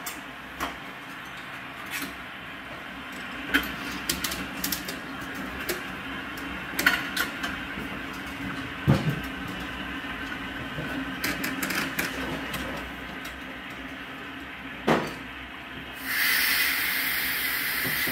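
Scattered sharp clicks and knocks. About 16 seconds in, a steady loud hiss starts: water at about 75 psi rushing in to fill a new 50-gallon tank water heater.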